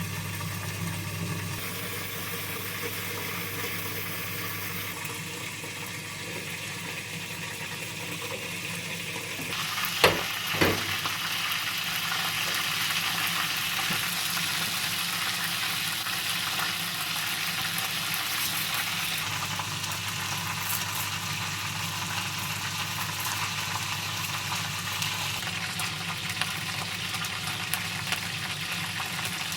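A low steady hum, then two sharp knocks about ten seconds in. After the knocks, food sizzles steadily as it fries in a hot pan.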